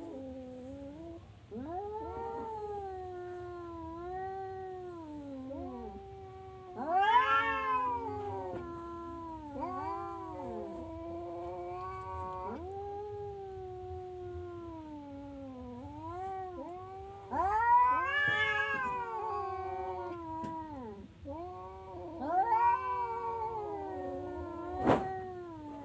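Orange cat yowling in long, drawn-out calls that rise and fall in pitch, one after another with barely a pause; three of the calls are much louder. A single sharp click sounds near the end.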